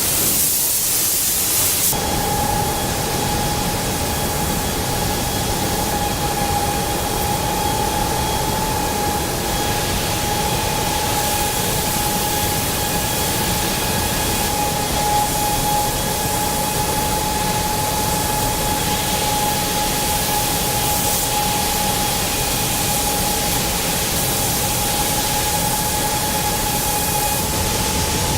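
Steady hiss and rumble of car-assembly-plant machinery, with a constant high-pitched whine that comes in about two seconds in and holds steady.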